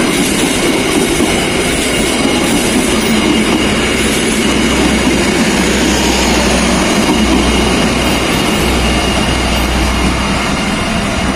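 Passenger train of stainless-steel coaches rolling past close by: a loud, steady rumble of wheels on the rails, easing a little near the end as the last coach goes by.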